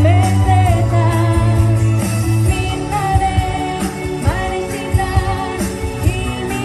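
A female voice singing a high melody over a loud pop-rock backing track with a heavy bass line and steady drums, played through stage speakers.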